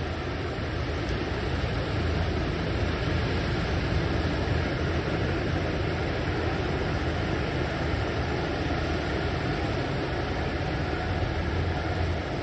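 Steady rushing noise of breaking surf, even and unbroken.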